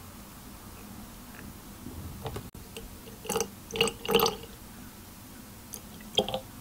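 Milk poured in a thin stream into glass bottles of mashed strawberries, giving a few short liquid splashes, most of them bunched about halfway through and one more near the end.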